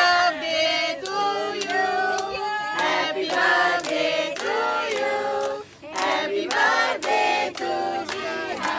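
A group of women and children singing together in chorus while clapping their hands in time, with a short break in the singing a little before the sixth second.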